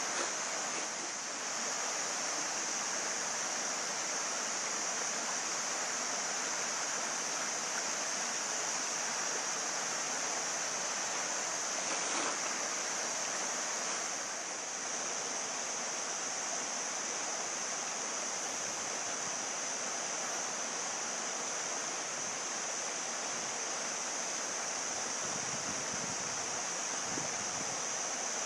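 Mountain stream rushing steadily, a continuous hiss of flowing water.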